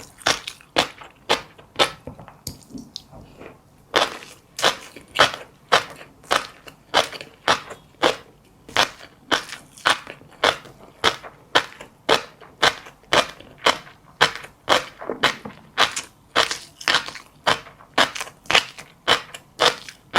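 Close-up chewing of crunchy seeds, each bite a sharp crisp crunch, about two to three a second, with a brief pause about two seconds in.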